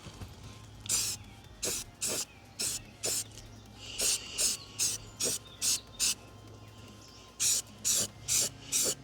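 Aerosol spray-paint can sprayed in about fifteen short blasts, each a fraction of a second of hiss, in two quick runs with a brief pause between them.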